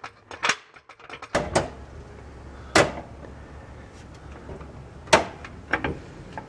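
Hydraulic floor jack being pumped up: several sharp metal clunks at uneven intervals over a low steady rumble.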